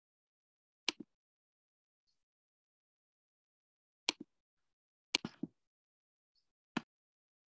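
Short, sharp clicks and knocks from a computer mouse and keyboard being worked, with dead silence between. They come as two pairs, then a quick run of three, then one more.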